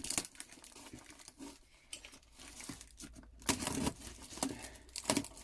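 Packing material crinkling and tearing in irregular bursts as a box of tools is unpacked by hand, with a few louder crackles about three and a half seconds in and near the end.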